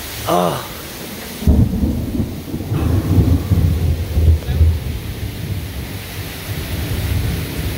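Thunder rumbling, breaking in suddenly about a second and a half in and rolling on in low waves, over steady heavy rain.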